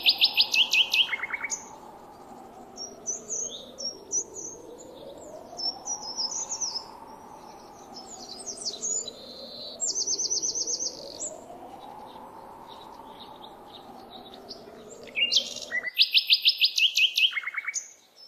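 Birds chirping and calling, with bursts of fast trilled notes near the start, about ten seconds in and again near the end. Underneath runs a faint tone that swells up and falls away slowly every few seconds.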